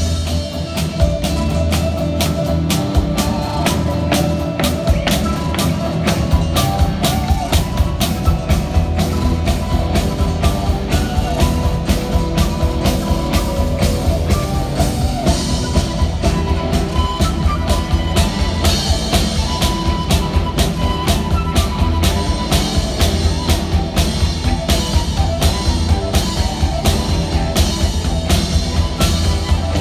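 Live rock band playing an instrumental passage, with drums driving a steady beat under electric guitars and bass, recorded on a mobile phone.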